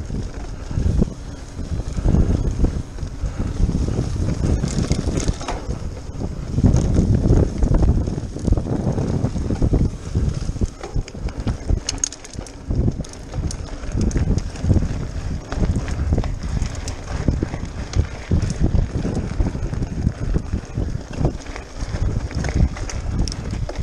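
Mountain bike ridden fast over a rocky dirt and gravel trail: a continuous rough rumble of tyres and frame over stones, broken by frequent sharp rattles and knocks as the bike jolts over rocks, with wind buffeting the microphone.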